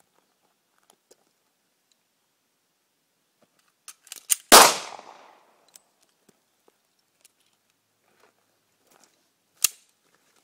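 A single pistol shot from a .40-calibre Sig Pro 2340, loud and sharp with a fading tail of about a second, about halfway through, with a few light clicks just before it. One short sharp knock near the end.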